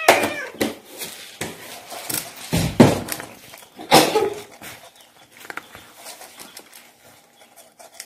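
A cat eating dry kibble from a plastic bowl, with scattered clicks and knocks. A heavy thump just under three seconds in and a sharp knock about a second later are the loudest sounds.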